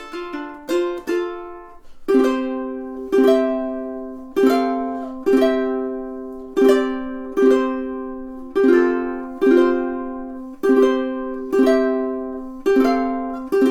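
Lanikai ACST-T solid acacia-top tenor ukulele, played unaccompanied: a few quickly picked single notes, then strummed chords about once a second, each left to ring.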